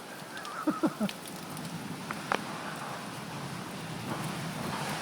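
Heavy storm rain falling and splashing steadily, with a few brief faint pitched sounds about a second in and a single sharp tap a little over two seconds in.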